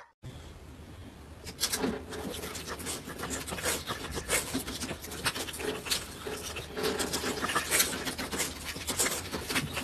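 A caged dog mouthing and biting at a hair clipper pushed through the bars: irregular scratchy clicking and rattling.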